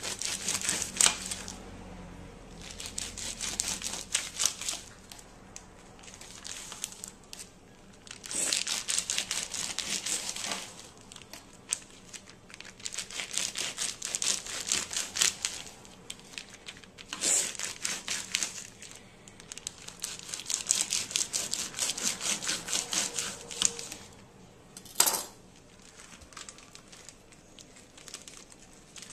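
Clear plastic meat packaging crinkling and tearing as a knife saws it open, in repeated bursts of one to three seconds with short pauses between them, and one short sharp crackle near the end.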